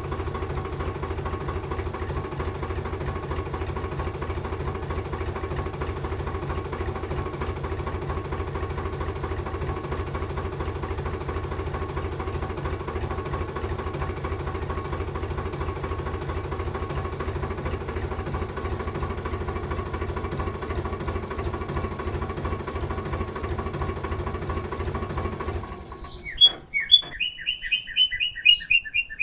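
Miniature model diesel engine running steadily with a fast, even putter. It cuts off suddenly about 26 seconds in and is followed by a run of quick high-pitched chirps.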